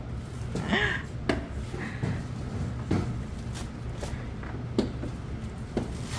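Irregular knife knocks and clicks as a kitchen knife cuts green onions on a cutting board, over a steady low hum.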